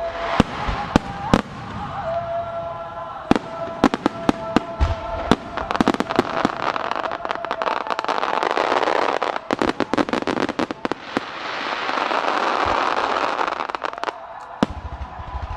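Starmine fireworks barrage: a rapid run of sharp bangs from shells bursting, with two long stretches of dense crackling as fountains and crackling stars fire, one in the middle and one toward the end.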